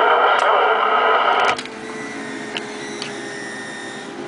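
CB radio receiver on channel 17 playing a loud, rough signal from distant skip stations, with several whining tones mixed in. It cuts off abruptly about a second and a half in, leaving a quieter steady hiss of band static with a faint steady tone.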